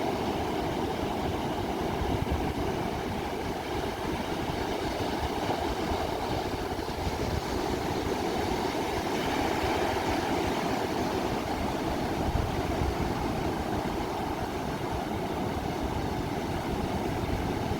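Ocean waves: a steady rushing wash of surf, nearly even in level with only small swells.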